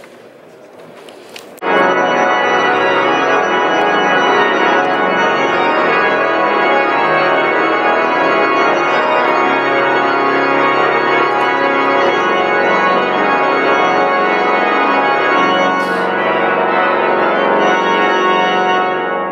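Cathedral pipe organ playing a loud, full passage of sustained chords. It comes in suddenly about two seconds in and dies away into the hall's reverberation near the end.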